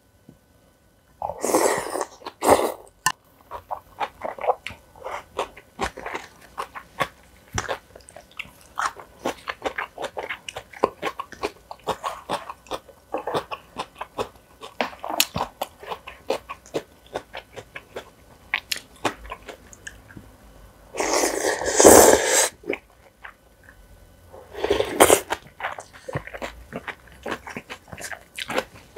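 Close-miked eating sounds: steady chewing with many short, wet mouth clicks and smacks. There are three louder, longer slurps: one about a second in, and two in the last third.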